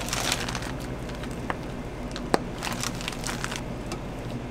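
Food-prep handling noises as whipped cream is piped onto a chocolate-spread crepe. There are short rustling bursts from the plastic piping bag and utensils, and a single sharp click a little past halfway, over a steady low hum.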